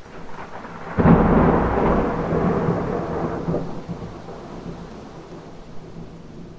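Thunder: a low rumble builds, a sharp crack hits about a second in, and the rolling rumble fades away over the next few seconds, over the steady hiss of rain.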